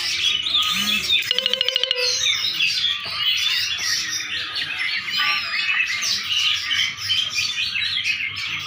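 Songbird singing continuously in a dense stream of rapid chirps and trills. About a second in comes a fast rattling run of around ten sharp ticks.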